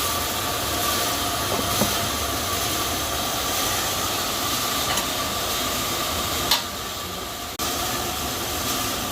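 A machine running steadily: an even hiss with a faint high whine, a sharp knock about six and a half seconds in, then a brief dip in level.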